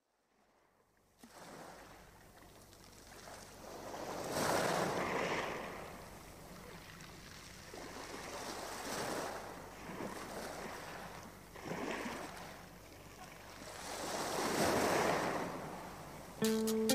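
Sea surf rushing in and ebbing away in slow swells, each wave building for a couple of seconds and fading. Just before the end a plucked guitar comes in.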